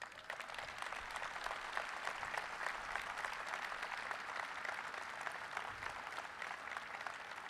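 Audience applauding: many hands clapping at once, starting abruptly and keeping a steady, dense patter that eases slightly near the end.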